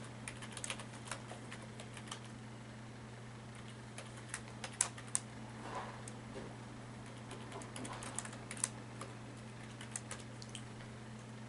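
Typing on a computer keyboard: short runs of key clicks with pauses between them, over a low steady hum.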